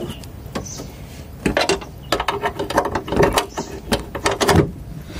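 Handling noise: a quick run of mechanical clicks and knocks as something is adjusted and set in place at the car's open bonnet, starting about a second and a half in and stopping shortly before the end.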